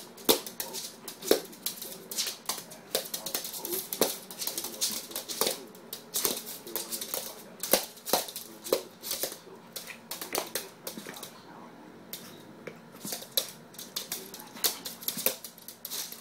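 Pomeranians' claws clicking and skittering on a hard floor as the dogs play, in quick irregular runs of sharp clicks, easing off briefly about twelve seconds in.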